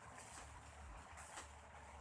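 Near silence: a faint steady hiss with soft high-pitched rasps recurring about once a second, over a low hum.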